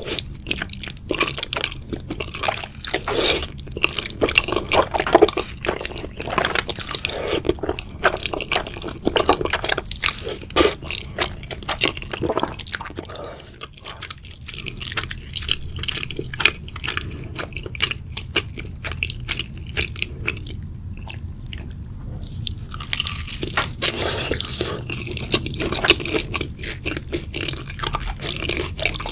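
Close-up wet chewing and slurping of noodles and chicken, with irregular smacking and squishing mouth sounds and a quieter pause partway through.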